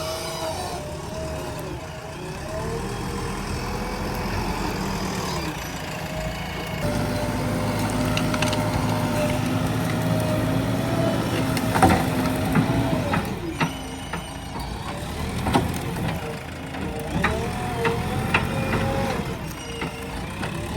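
JCB 3DX backhoe loader's diesel engine running as the machine works, its pitch rising and falling, with a few sharp knocks or cracks in the second half.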